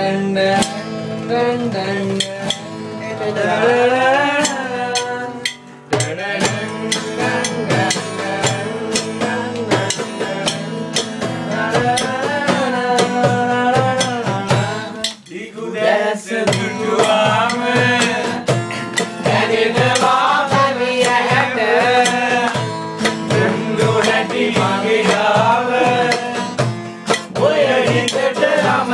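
Men singing a song together, accompanied by a hand drum beaten with the hands in a steady rhythm, with a brief break in the singing about halfway through.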